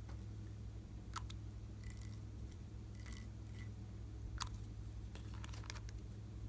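Slime being handled and mixed, giving scattered small sharp clicks and pops that come thicker toward the end, over a steady low hum.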